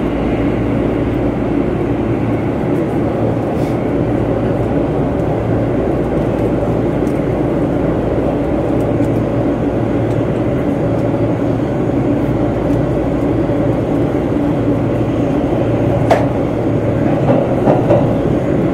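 Tokyo Metro Ginza Line subway train, a steady loud rumble and hum heard from on board, with one sharp click near the end.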